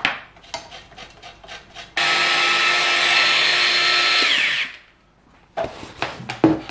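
Electric mini food chopper with a press-down top, its motor running for about two seconds as it blitzes a dry mix of ground almonds and grated Parmesan, then spinning down with a falling whine. Before it come light taps and clicks as the lid and top go on; near the end there is a clatter of things being set down.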